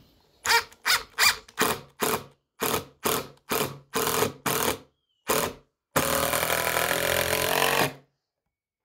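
Cordless drill driving a screw into pine: the trigger is pulsed in about eleven short bursts, then held for one steady run of about two seconds before it stops.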